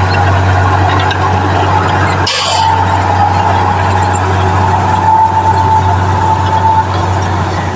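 Heavy diesel construction machinery running steadily with a loud low drone. A steady high whine comes in about two and a half seconds in and fades near the end. Just before the whine, the drone breaks off for a moment with a short sharp sound.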